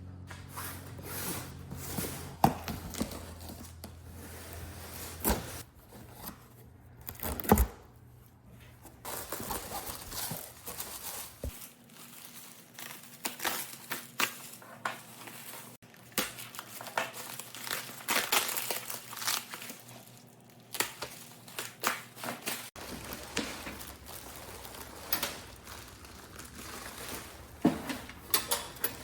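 Crinkling and crumpling handling noise with scattered sharp clicks and knocks, broken into several cut-together stretches.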